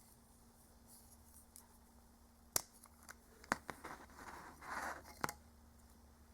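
Small plastic items being handled: four sharp clicks spread over a few seconds, with a short rustle between the last two, as plastic pens and their packaging are set down and put away.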